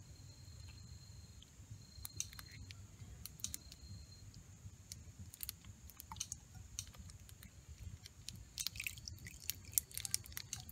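Small clicks and taps of a metal measuring spoon and a plastic soy sauce bottle being handled over an aluminium camp pot as soy sauce is measured out and tipped in, the taps coming more often near the end.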